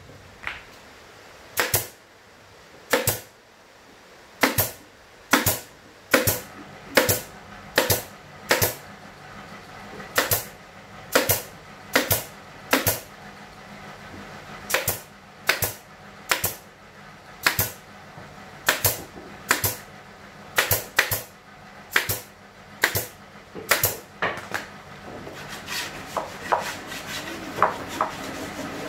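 Pneumatic brad nailer firing F20/F30 brad nails into plywood cabinet panels: about two dozen sharp clacks, singly or in quick runs often under a second apart. They stop near the end, giving way to fainter scraping and handling of the wood.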